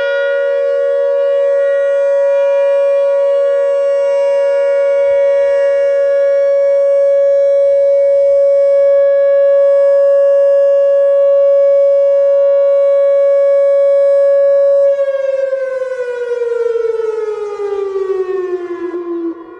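Whelen WPS-2910 outdoor warning siren sounding a steady alert tone, with a second, more distant Federal Signal 508 siren heard beneath it. About fifteen seconds in, one siren's pitch starts falling as it winds down while the other tone holds.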